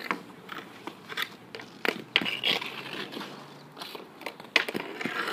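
Roller hockey shots on asphalt: a string of sharp, irregularly spaced clacks of a hockey stick hitting a plastic street-hockey ball and the ball smacking off the goalie's gear, the strongest about two seconds in and a second before the end.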